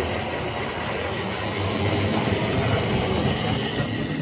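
OO gauge model train running on the layout track: motor whirr and wheels running over the rails, getting a little louder about halfway through as it comes closer.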